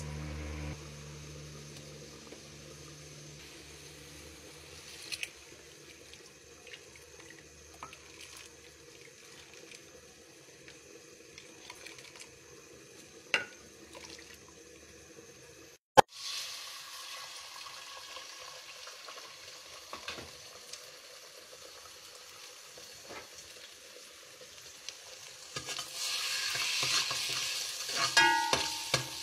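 Mostly a quiet hiss with a few scattered clicks; near the end beaten egg starts sizzling loudly in hot oil in a steel pan, with a spatula scraping and stirring it in quick strokes.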